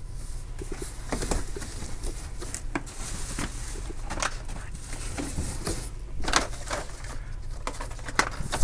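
Plastic bags and cardboard boxes rustling and crinkling on and off as things are dug out by hand, with small knocks of objects being moved.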